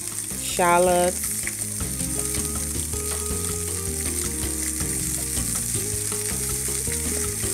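Onions, green onions and shallots sizzling as they sauté in a nonstick frying pan, stirred and turned with a wooden spatula.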